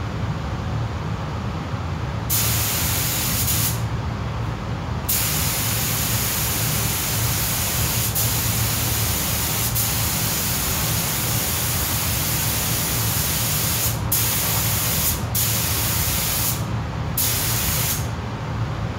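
Compressed-air spray gun spraying primer in passes as the trigger is pulled and released: a loud hiss that starts about two seconds in, stops briefly, runs long, then comes in shorter bursts with brief gaps near the end. Under it is a steady low hum.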